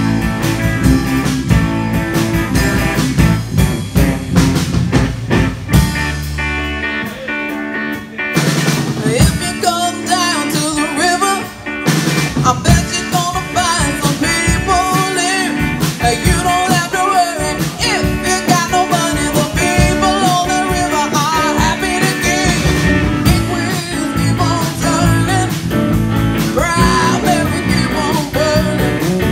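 Live band playing a rock/blues number on electric guitars, electric bass and drum kit, with a singer's voice over it from about nine seconds in.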